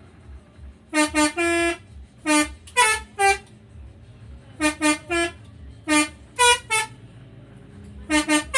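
Telolet horn on an Agam Tungga Jaya bus playing its musical tune. It sounds in short phrases of about three quick notes at different pitches, repeated five times, over a low rumble.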